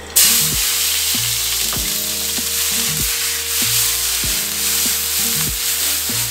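Diced bell peppers, red onion and jalapeño hitting hot olive oil in a stainless-steel sauté pan: a loud sizzle bursts in just after the start and keeps on steadily as the vegetables are tossed and fried.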